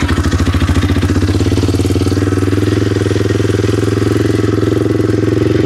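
Exhaust of a VR1 250 cc road motorcycle with the engine idling steadily: an even, bassy exhaust note from the muffler.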